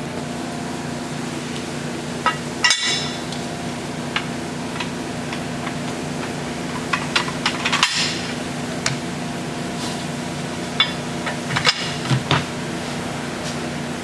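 Steel parts of a trailer dump lift knocking and clinking as the lower side pieces, bracket and pin are handled and fitted together. The sharp knocks come scattered and in small clusters over a steady background hum.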